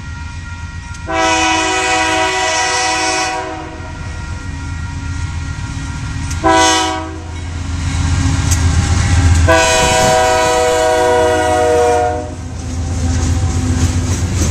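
Union Pacific diesel freight locomotive's air horn sounding three blasts, long, short, long, as the train approaches and passes. Under it runs the steady low rumble of the locomotive's engine and the rolling wheels of the covered hopper cars.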